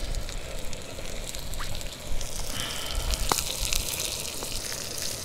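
Ribeye steak sizzling in a skillet on a portable gas burner: a steady hiss with crackles that grows stronger a little over two seconds in. There is one sharp click a little past three seconds.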